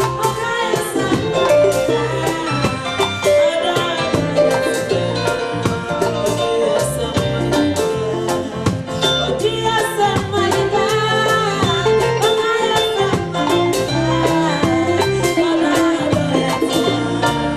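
Live band music with a steady drum beat and a repeating bass line under a melody, loud and continuous.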